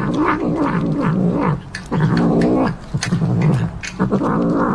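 A tabby cat growling while it eats meat off a skewer: a low, wavering grumble in three long stretches with short breaks, with small clicks of chewing.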